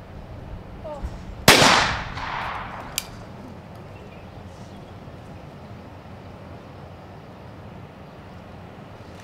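One shotgun shot from a trap shotgun about one and a half seconds in, with its echo trailing off for about a second. The shot breaks the clay target. A short sharp click follows about a second and a half later.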